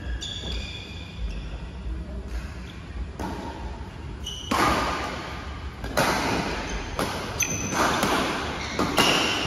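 Badminton doubles rally: rackets striking the shuttlecock about once a second, each hit a sharp crack that echoes in the large hall, getting louder from about halfway, with short high squeaks of court shoes between the hits.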